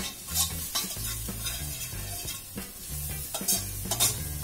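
A metal spatula scraping and stirring round a wok in repeated strokes, over the sizzle of sliced shallots, garlic and chilies frying in a little oil. They are being stir-fried until slightly dry.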